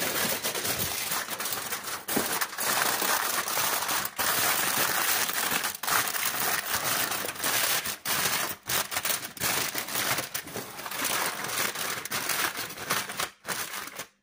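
Aluminium foil crinkling and crackling without pause as it is laid over a roasting tray and pressed down around the rim by hand, full of sharp crackles; it cuts off suddenly at the end.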